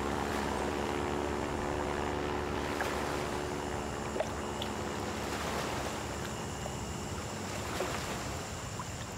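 Steady drone of a small floatplane's propeller engine, fading out near the end.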